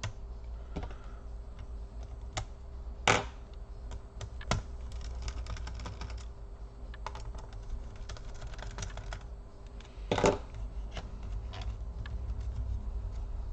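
Small scattered clicks and scrapes of a precision screwdriver backing screws out of a laptop's metal base, with two louder knocks, about three seconds in and again about ten seconds in.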